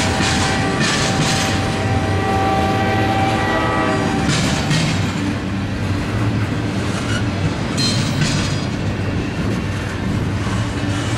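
Double-stack intermodal well cars rolling past with a steady low rumble, their wheel sets clacking over rail joints in two clusters, about halfway through and again about two-thirds through. A train horn chord sounds and stops about four seconds in.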